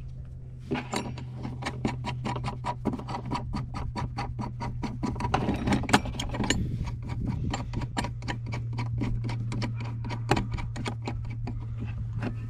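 Ratcheting wrench clicking in a quick, even run as a nut is tightened onto a bolt and backing plate, over a steady low hum.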